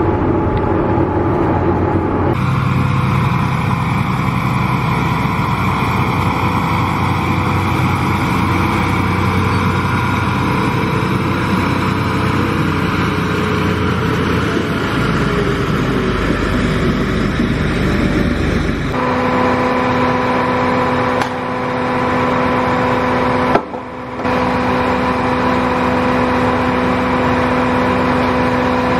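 John Deere row-crop tractor engine running steadily while towing a chisel plow; the sound changes abruptly twice. From about two-thirds of the way through it becomes a steady hum with a clear pitch, broken by a brief drop a few seconds later.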